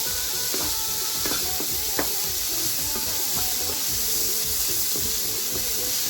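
Food frying in a hot pan with a steady sizzle, and a single utensil tap about two seconds in.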